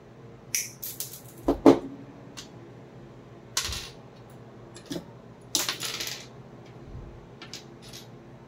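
Cutting tool snipping the ends of an Ethernet cable's wires to length, a handful of sharp separate snips and clicks with short gaps between them; the loudest comes a little under two seconds in.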